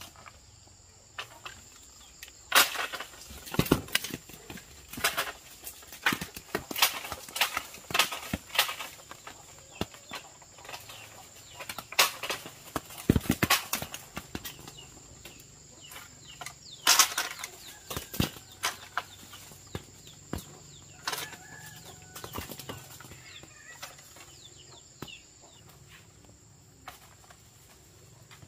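Irregular rustling and sharp snaps, a few much louder than the rest, over a faint steady high whine.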